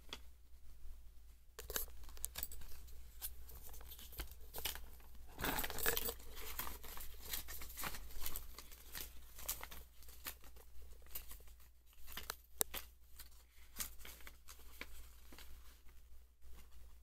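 Paper and packaging rustling and crinkling, with light clicks and taps, as items are handled in a cardboard box. The rustling is densest about six seconds in.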